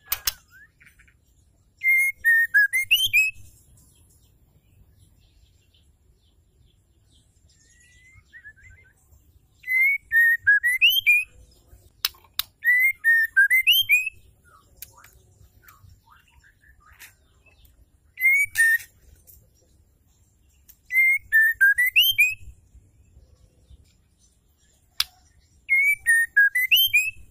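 Female white-rumped shama calling: a short whistled phrase that dips and then rises, with thin high chips over it, repeated six times with pauses of a few seconds between. A few sharp clicks fall in the gaps.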